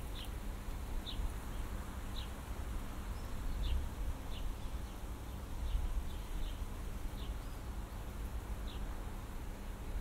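A small bird calling with short, high, falling chirps about once a second, over a steady low rumble.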